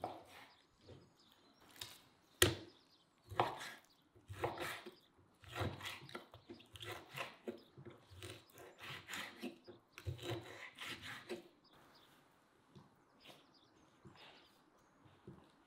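Kitchen knife cutting raw beef into cubes on a wooden cutting board: a run of knocks of the blade on the board, the sharpest about two and a half seconds in, stopping after about eleven seconds.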